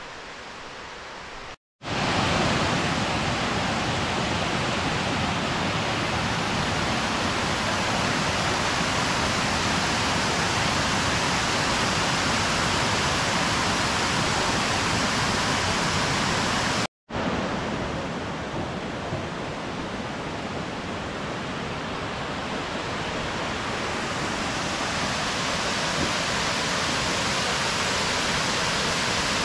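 Steady rushing of a multi-tiered waterfall, the Kuang Si Falls cascades pouring over rock ledges into a pool. The sound cuts out briefly twice, about two seconds in and again about halfway through.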